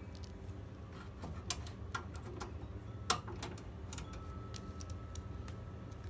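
A few light, scattered clicks and taps over a low steady hum, about four in all: a small screw and a screwdriver being handled and set down.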